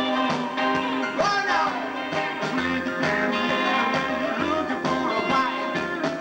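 Live rockabilly band playing a rock and roll number, with upright double bass and drums.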